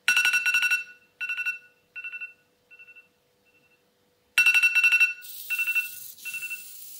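Smartphone alarm ringtone playing from the phone's speaker: a rapidly pulsing two-tone ring that fades away over a few repeats, then rings loud again about four and a half seconds in, with a hiss under it in the last two seconds.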